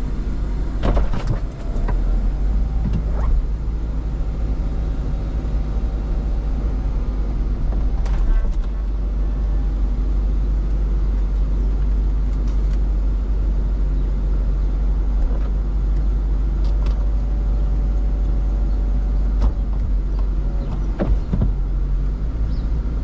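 Mercedes SLK 55 AMG R171's electro-hydraulic folding hardtop lowering: a steady hydraulic pump hum with held whining tones and scattered clicks and knocks as the roof panels and latches move. The V8 engine idles underneath.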